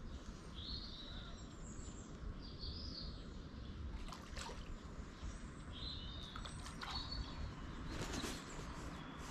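A songbird singing short, repeated phrases over a steady low outdoor rumble, with a few brief clicks in between.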